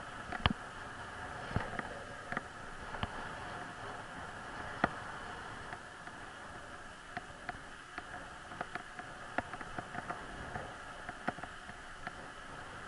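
Bicycle rolling along a rough asphalt lane: steady tyre and air noise with irregular sharp clicks and knocks as the bike jolts over the bumpy surface, more frequent in the second half.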